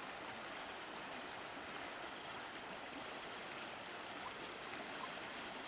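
Steady, even rushing noise like running water, with a faint high steady whine above it and a few faint ticks.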